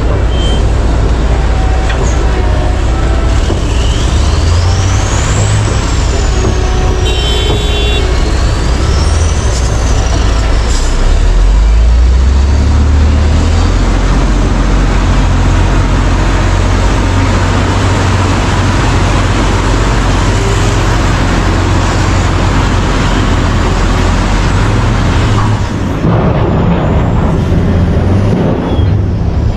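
Heavy diesel engine of large mining machinery running loud and steady, with a high whistle rising and falling a few times in the first ten seconds.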